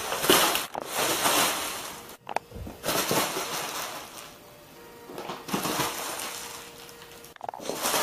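Crinkly rustling in about four bursts a second or so long, as a cat scrambles about in a crinkly play tunnel.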